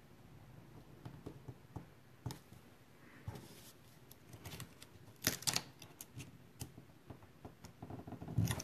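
Small scattered clicks, taps and rustles of paper craft pieces being handled on a tabletop, with a brief cluster of louder taps a little past halfway.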